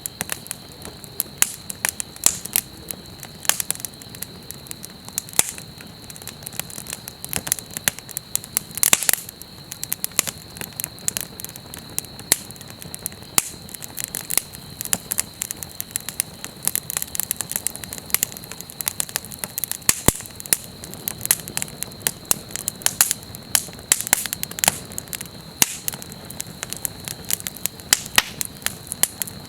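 Wood campfire crackling, with many irregular sharp snaps and pops over a soft steady burn. A faint steady high tone sits alongside it.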